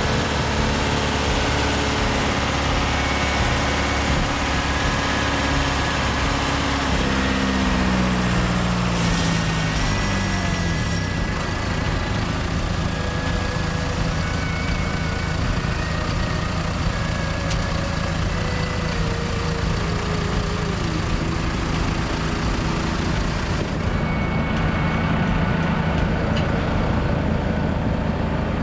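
Diesel engine of heavy earthmoving equipment running steadily. Its pitch falls about a quarter of the way through as it throttles down, then shifts slightly again past the middle.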